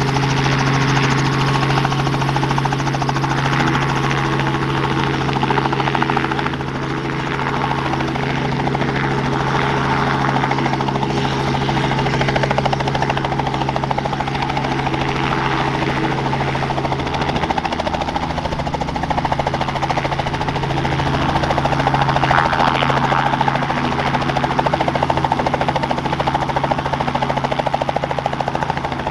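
Robinson R44 Raven II helicopter running on the ground, its Lycoming IO-540 six-cylinder engine and rotor making a loud, steady hum. The tone shifts about two-thirds of the way through and grows slightly louder near the end as power comes up for lift-off.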